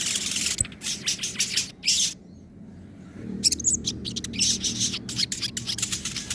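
Sogon songbird singing in fast, high-pitched chattering runs, breaking off for about a second a little past the middle, then resuming.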